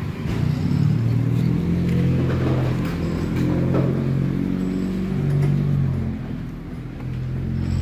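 A motor or engine running steadily with a low hum whose pitch shifts up and down, with faint scrubbing and handling noises from a soapy sponge on an air-conditioner unit.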